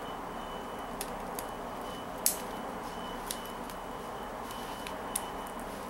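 Small scissors snipping the string of a peyote-stitch Kandi bead panel, with the plastic beads clicking against each other: a few sparse small clicks, the sharpest about two seconds in, over a steady hiss.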